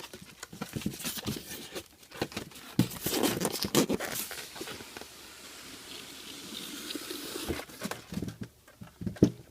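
Cardboard box and its packing being opened and handled by hand: irregular rustling, scraping and tearing with many small clicks and knocks.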